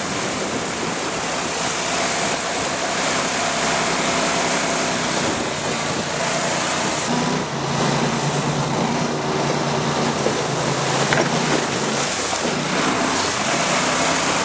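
A Prodrive surface-drive mud motor running on a mud boat, a steady engine note that comes through more strongly about halfway through, under heavy wind and water noise.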